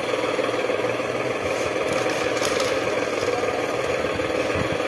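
A small engine or motor running steadily with a fine, even rattle, the running sound of a toy tractor.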